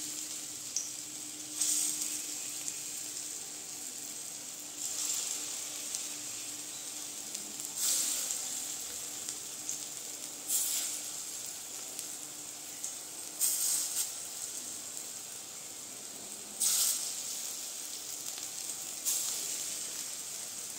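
Hot mustard oil sizzling steadily in a kadai as dollops of pea-and-moong-dal fritter batter are dropped in by hand. Each new dollop brings a louder burst of sizzling, seven times, about every three seconds.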